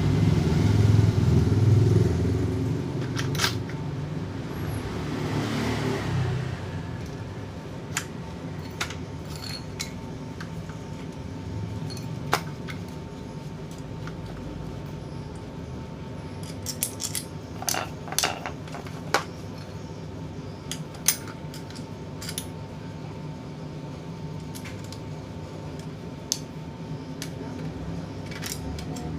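Scattered sharp clicks and light metallic clinks from handling the parts of an electric fan with a seized motor shaft, over a steady low hum. A louder low rumble fills the first six seconds or so and then fades.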